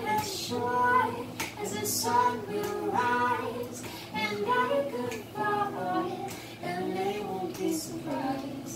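A woman singing with her own strummed acoustic guitar, a man's voice singing along with her.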